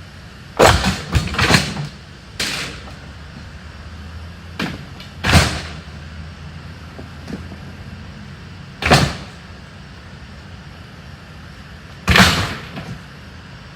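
Loud bangs and clatters of household junk and debris being thrown and dropped onto a truck: a quick cluster of impacts about a second in, then single crashes every few seconds. A low steady hum runs underneath.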